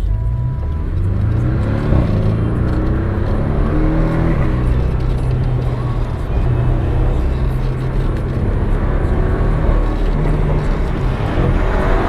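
Porsche 718 Cayman engine heard from inside the cabin, pulling under acceleration: the revs climb over the first few seconds, hold fairly steady, then rise again near the end.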